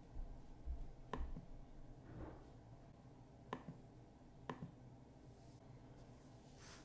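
Faint, scattered clicks and taps from the laptop and its packaging being handled, a few sharper ones, over low room hum.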